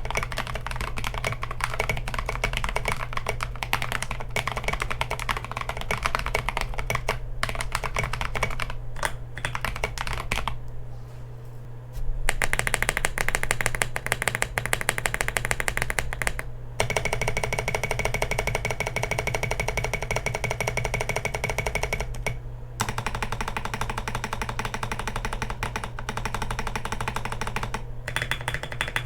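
Continuous typing on a mechanical keyboard with Holy Boba tactile switches (a Gazzew Boba U4T housing with a Kailh Polia stem): rapid, dense keystroke clacks with a few brief pauses. Background music plays underneath.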